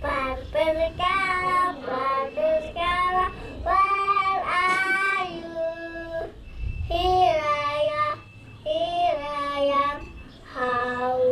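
A child singing, in phrases of held, bending notes with short breaks between them.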